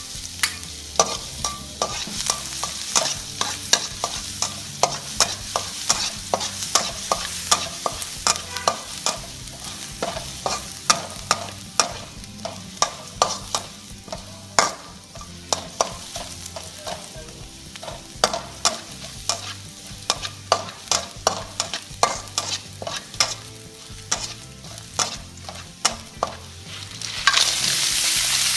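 Chopped garlic frying in a metal wok, sizzling steadily, while a metal spatula scrapes and clinks against the pan a few times a second. Near the end, crabs go into the wok and the sizzling suddenly gets louder.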